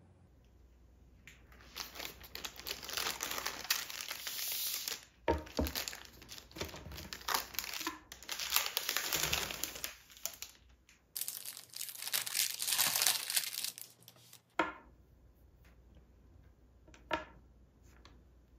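Thin white tissue-paper wrapping crinkling and rustling in long stretches as a small packet is unwrapped, stopping about two-thirds of the way through. Two light taps follow near the end.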